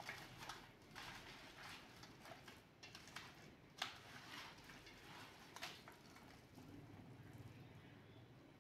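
Hands mixing fish pieces in a thick spice marinade in a steel plate: faint wet squishing with irregular light clicks and taps against the metal, the sharpest about four seconds in.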